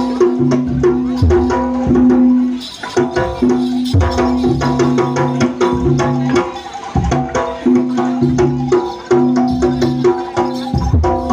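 Live jaranan music from a Javanese gamelan ensemble: drums and struck percussion in a quick, busy rhythm under held pitched notes.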